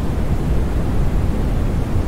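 Space heater's fan running: a steady, even rush of noise, heaviest in the low rumble.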